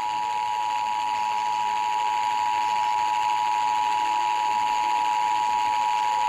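Emergency Alert System attention signal: the steady two-tone alarm of 853 and 960 Hz sounding together over a radio broadcast, with a faint hiss beneath it, marking the start of a monthly EAS test.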